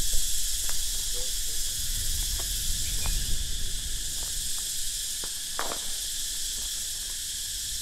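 Steady high-pitched drone of a tropical insect chorus, with a low rumble that eases after the first few seconds and a few faint scattered clicks.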